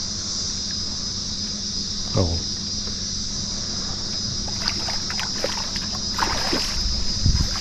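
A steady high drone of insects, with a short splash at the water's surface about six seconds in: a mullet jumping.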